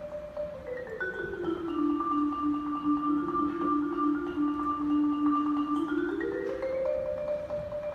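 Solo marimba played with mallets: rolled notes step down to a low note that is sustained in a tremolo roll for about four seconds, then climb back up.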